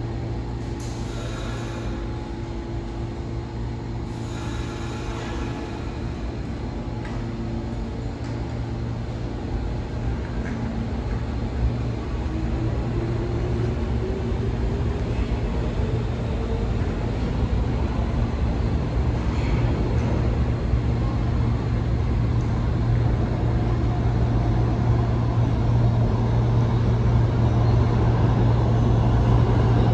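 New York City subway train in the station: a steady low rumble and hum that grows louder throughout, with a whine rising in pitch about twelve seconds in.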